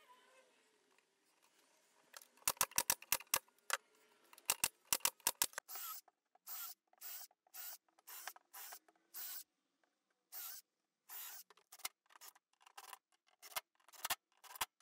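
Cordless drill-driver and impact driver driving screws into plywood in many short bursts of under half a second each. A quick run of sharp clicks comes about two seconds in.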